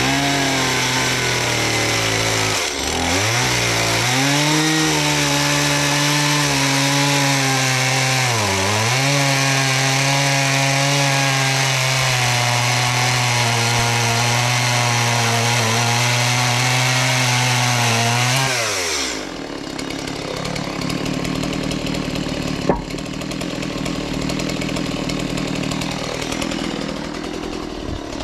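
High-speed power tool motor running with a steady pitch that dips and recovers twice as it is loaded. It cuts out about 19 s in, leaving a lower, rougher running sound.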